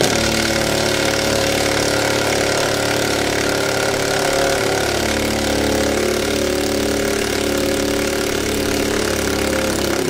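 Handheld power tool motor running steadily, backing out a tight 10 mm bolt.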